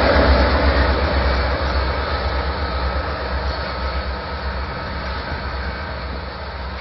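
Two Union Pacific diesel locomotives running light: their engines and wheels on the rails fade steadily as they move away.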